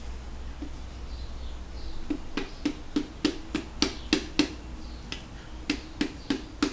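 Light, even mallet taps, about three a second, driving a piston with new rings down into the cylinder bore of a Mitsubishi 4M40T diesel block. The taps start about two seconds in, pause briefly, then carry on.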